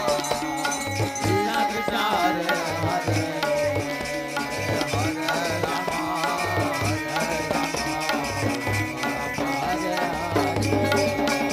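Devotional kirtan music: a hand drum beating deep strokes in a lively rhythm under a gliding sung melody.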